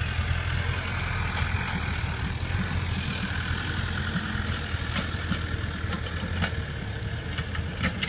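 Sightseeing vehicle running along a road: a steady low hum with road noise.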